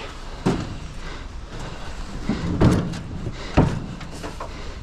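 A few heavy knocks and thuds, the loudest two about two and a half and three and a half seconds in, over steady background noise.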